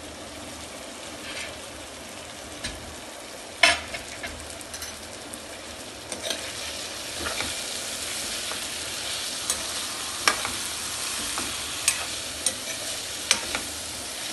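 Diced potato, onion, capsicum and tomato frying in ghee in a kadhai, sizzling steadily and a little louder from about halfway through. A steel spoon stirring them clinks sharply against the pan a handful of times.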